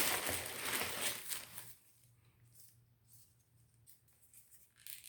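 Rustling and crinkling that fades out after about a second and a half, followed by quiet with a few brief faint rustles near the end.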